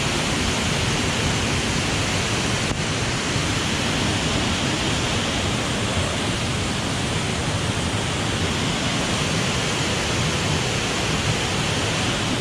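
Waterfall swollen by heavy rain: a steady, unbroken rush of falling water.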